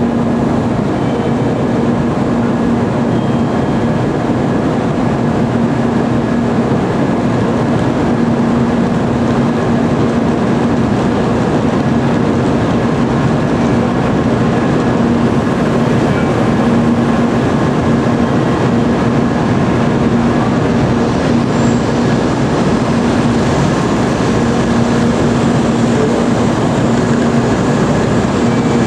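JR Central N700A Series Shinkansen pulling slowly into a station platform: a steady rumble of wheels and running gear with a steady low hum.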